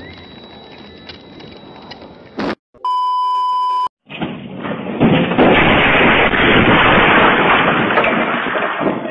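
A steady one-second beep, then, after a brief silence, a loud noisy crash lasting several seconds as a vehicle smashes through a backyard pool fence and across the deck. It is heard through a home security camera's microphone.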